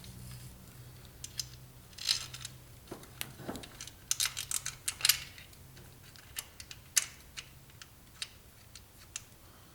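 Scattered light metallic clicks and clinks of timing chain, sprockets and tools being handled on an engine, with a busier cluster about four to five seconds in, over a low steady hum.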